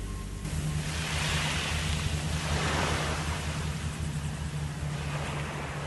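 Boat at sea: a steady low engine hum under rushing water and wind noise, with the water swelling louder a couple of times.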